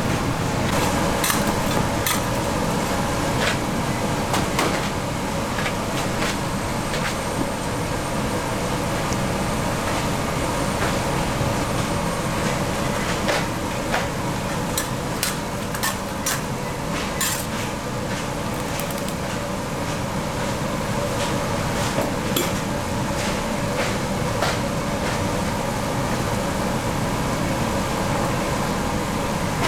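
Candy-factory machinery running with a steady drone, with scattered sharp metallic clicks and knocks.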